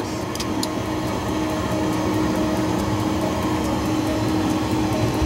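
Steady cockpit noise in an MD-11 flight simulator climbing on autopilot: an even rushing hum with a held drone note, and a couple of faint clicks about half a second in.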